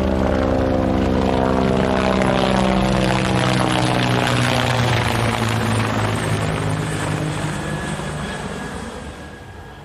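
Helicopter flyover sound effect, played unprocessed: the rotor and engine pass overhead, loud at first, with the pitch drifting slightly lower, then fading away over the last few seconds.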